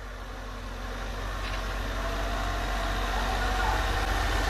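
A motor vehicle's engine running steadily, slowly growing louder.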